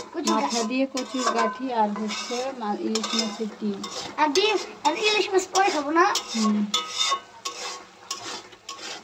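A spatula stirring and scraping crumbly hilsa roe around a metal karahi, with squeaky scrapes and clatter against the pan over a light frying sizzle. It eases off for the last couple of seconds.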